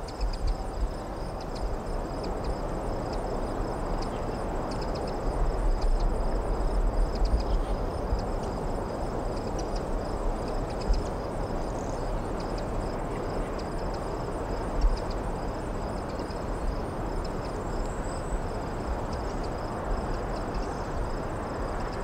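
Crickets chirping steadily in a high, pulsing trill over the distant hum of traffic from the valley below, with wind buffeting the microphone in low rumbles. The traffic hum swells for a few seconds about five seconds in.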